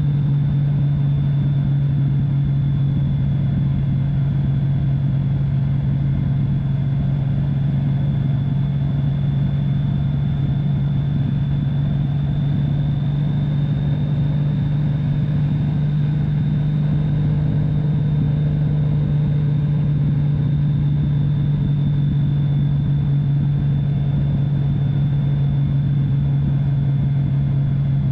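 Touring motorcycle cruising at a steady speed: a constant low engine hum with road and wind noise, and a faint steady high whine above it.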